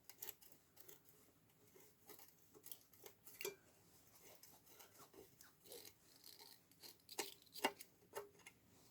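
Faint, scattered clicks and light taps of metal parts and a screwdriver being handled while a transformer casing is unscrewed, with a few sharper clicks near the end.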